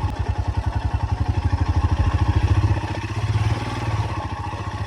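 Motorcycle engine running at low revs, its firing pulses coming fast and even, easing slightly about three seconds in.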